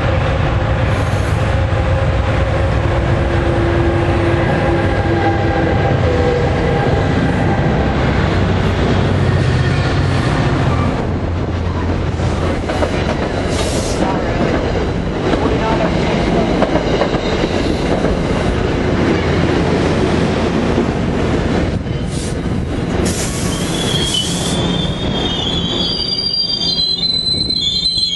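New Jersey Transit commuter train running along a station platform: a steady low drone and wheel-on-rail noise. High, thin wheel squeals come in near the end.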